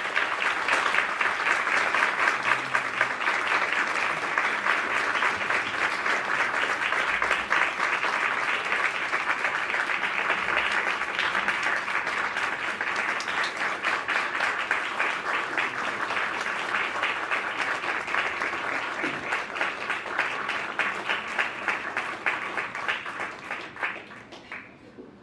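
Audience applauding: a long, dense round of clapping that slowly tapers and dies away near the end.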